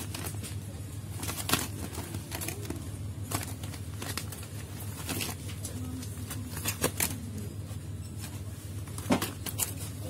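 Clear plastic packaging of stationery sets crinkling and rustling as it is handled, with several sharp crinkles spread through, over a steady low hum.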